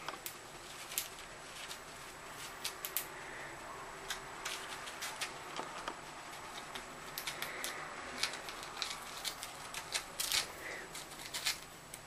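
Paper towel crackling and tearing as budgerigars nibble at it with their beaks: irregular small clicks and rustles, a few louder crackles near the end.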